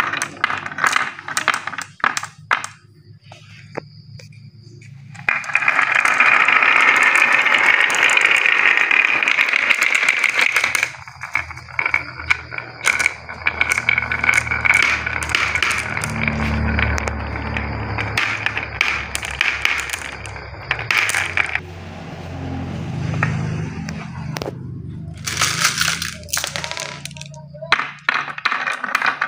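Glass marbles rolling along wooden and plastic marble-run tracks and clacking against each other, with many sharp clicks and a long stretch of steady rolling noise about five seconds in.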